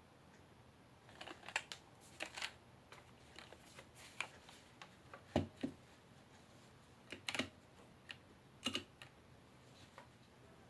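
Womier K66 mechanical keyboard being typed on: irregular clusters of key clacks start about a second in and stop near the end.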